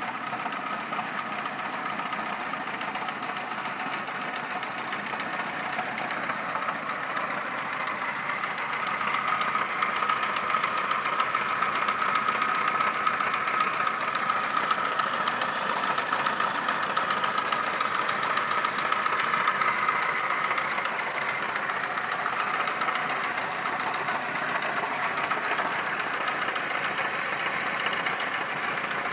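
Saab 9000 engine running warm with a knock, which the owner flags as a fault that shows up once the engine is warmed up. The steady running sound grows louder for a stretch in the middle, then eases back.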